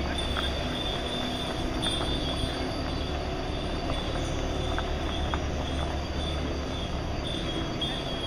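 Steady low mechanical drone with a thin, high, steady whine over it, and a few faint light clicks.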